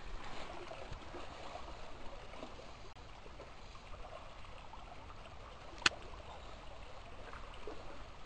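Steady rushing of river water, with a single sharp click about six seconds in.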